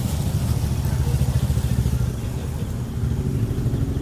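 An engine running steadily, with a low, rapid pulsing rumble.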